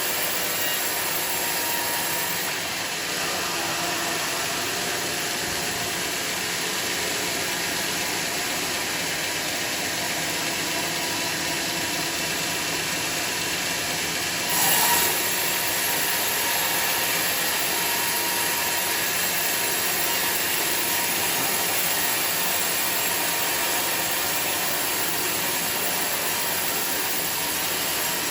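Sawmill machinery running steadily, a continuous mechanical noise with faint steady tones, with a brief louder burst about halfway through.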